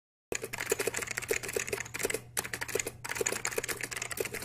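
Fast typing on a computer keyboard: a dense, irregular run of key clicks that starts a moment in, over a faint low hum.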